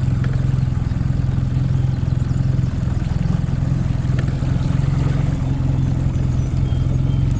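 Mercury outboard motor running steadily, pushing the boat along the river while the motor is still cold.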